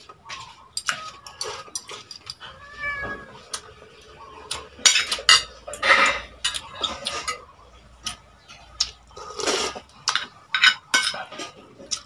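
Metal fork and spoon clinking and scraping on plates during a meal, in quick irregular clicks. About three seconds in comes a short animal call that wavers in pitch.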